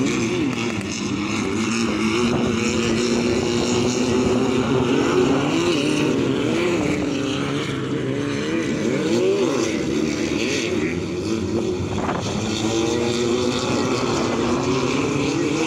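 Several 1600cc off-road race buggy engines running together, their pitch rising and falling over and over as the buggies accelerate and back off around the dirt track.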